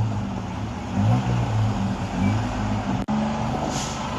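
Tuk-tuk's small engine running, its pitch wavering up and down with the throttle; the sound cuts out for an instant about three seconds in.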